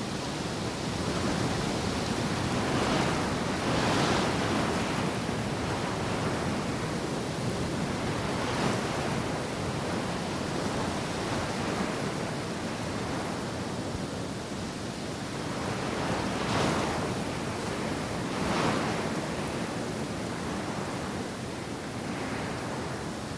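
Wind blowing across open country, a steady rushing that swells in gusts several times.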